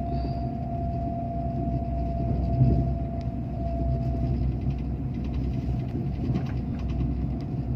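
Steady low rumble of an ICE high-speed train running, heard inside the passenger carriage, with a thin steady whine that fades out about four seconds in.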